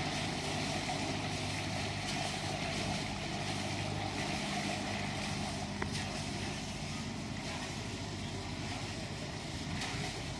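Engine of a passenger river cruiser running with a steady low hum as the boat moves slowly away through a lock; the hum weakens about halfway through.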